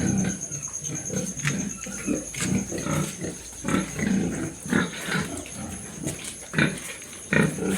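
Pigs grunting: many short calls in quick, irregular succession.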